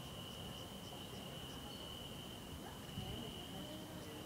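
Crickets trilling: one steady, continuous high trill, with a fainter, higher chirp repeating about three times a second for the first second and a half. There is a brief soft thump about three seconds in.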